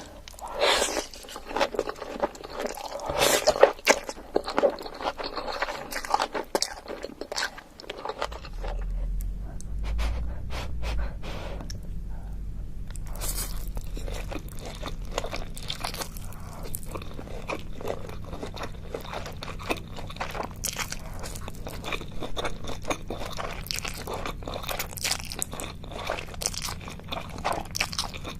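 Close-miked eating: crunchy bites and chewing of spicy Korean food, full of sharp crackles. A low hum comes in about eight seconds in.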